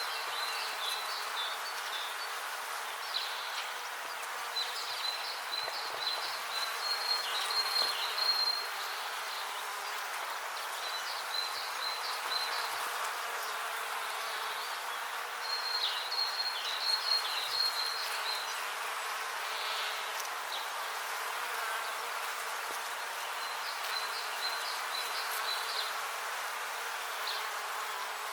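Bees buzzing in a steady drone, with short bursts of high chirping every few seconds.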